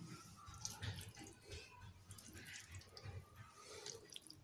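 Faint, scattered scrapes and taps of a serving spoon dishing cooked cluster beans and potatoes out of a clay handi onto a ceramic plate.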